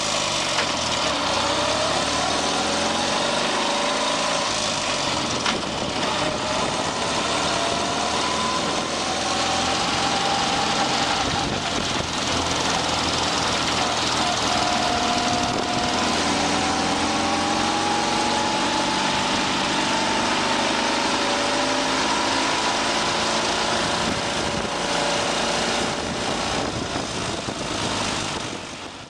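Motor vehicle engine running, its pitch slowly rising and falling; the sound starts and cuts off abruptly.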